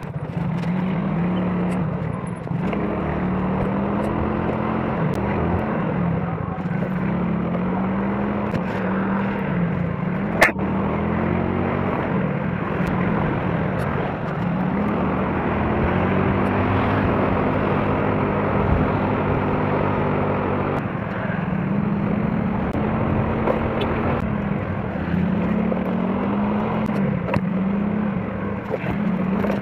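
Motor scooter engine running while being ridden through traffic, its pitch rising and falling with the throttle, under a steady rush of wind on the microphone. One sharp click about a third of the way through.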